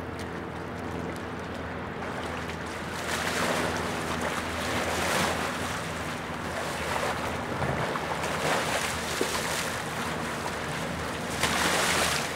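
A person wading through river water, legs churning up repeated splashes about a second apart, loudest near the end. Under it runs the steady low drone of a passing motor barge's engine.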